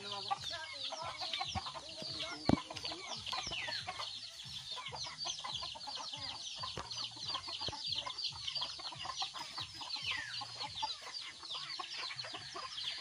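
Free-range chickens clucking, over constant short, high, falling chirps. A single sharp knock comes about two and a half seconds in.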